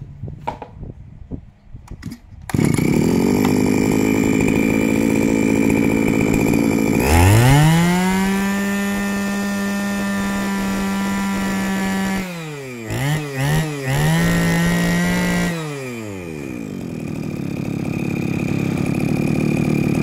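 Iseki CG2405 brush cutter's 23cc two-stroke engine pull-started, catching about two and a half seconds in and idling. Near the middle it is revved high and held, then blipped a couple of times, revved again and let fall back to idle.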